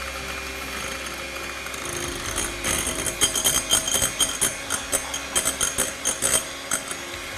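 Anex electric hand mixer running, its beaters whipping instant coffee, sugar and hot water in a glass bowl into a thick foam. From about two seconds in, rapid irregular clicking and rattling joins the steady motor hum.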